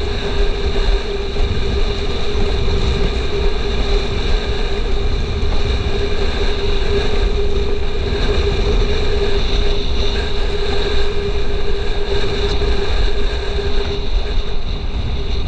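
Windsurf board planing at speed: water rushing and slapping under the hull, heavy wind buffeting on the microphone, and a steady hum.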